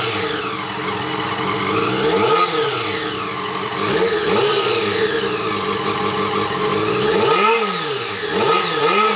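Honda CBR400RR's inline-four engine free-revving through a BOS aftermarket sport silencer. Short throttle blips send the revs up and back down to idle several times, two of them in quick succession near the end.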